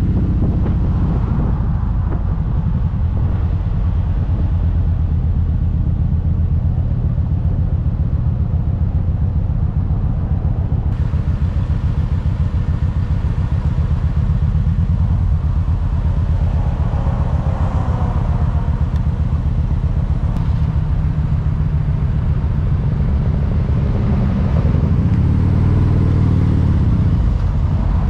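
Motorcycle engine running at low speed in slowed traffic, a steady low drone.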